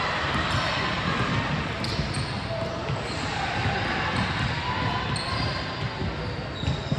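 Basketball bouncing on a gym court during play, with a steady background of voices.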